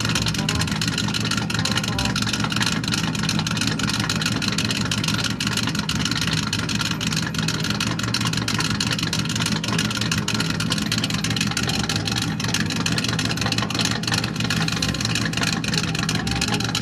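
Buick's straight-piped exhaust at a steady idle, a fast even run of exhaust pulses from the open tailpipe.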